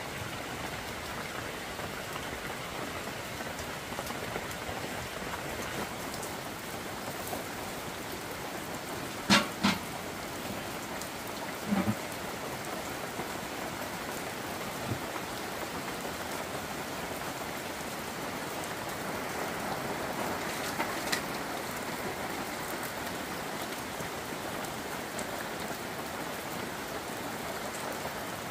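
Steady rain falling. A few short, sharp knocks stand out about a third of the way through.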